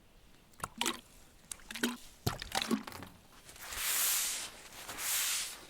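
A few sharp knocks and taps, then two long rubbing or scraping strokes about a second each, something being dragged hard across a fabric-covered wall surface.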